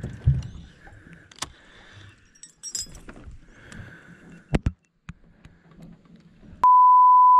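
A loud, steady single-pitch electronic bleep, like a censor tone, lasts under a second near the end and cuts in and out abruptly. Before it, scattered clicks, clinks and a couple of sharp knocks come from fishing gear on the boat.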